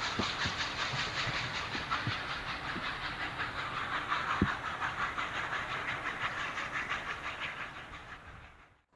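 PKP Ol49 steam locomotive working away with its train: steam hissing in quick, even pulses, with a few sharp knocks of wheels on the rails. It fades as the train draws off, then cuts out just before the end.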